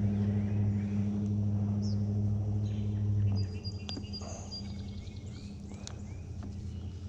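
A steady low machine-like hum that cuts off suddenly about three and a half seconds in, followed by scattered bird chirps and a few light clicks.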